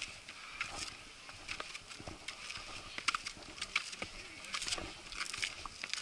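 Footsteps of several hikers on stone steps and a stone-paved path: irregular scuffs and clicks of shoes and sandals on rock.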